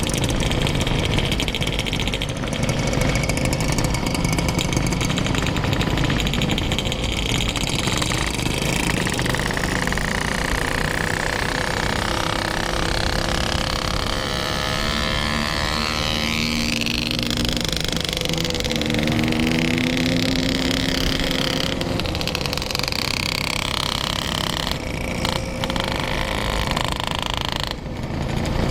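Yamaha RX-King two-stroke single-cylinder motorcycle running steadily under way, with wind and road noise on the camera microphone.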